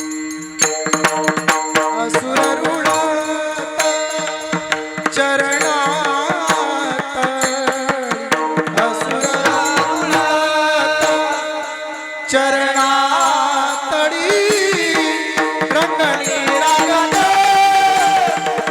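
Varkari kirtan music: mridang drumming under a sung devotional melody, over held steady tones.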